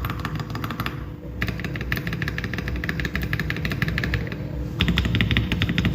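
Fast typing on a mechanical keyboard fitted with Akko Jelly Blue & White franken switches, Jelly White linear stems with no tactile bump: a dense run of clacky keystrokes. The typing breaks off briefly about a second in and again near four and a half seconds.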